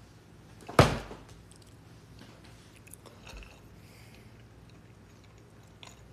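A single sharp knock on a hard surface about a second in, then faint sips through a straw from a glass of iced drink.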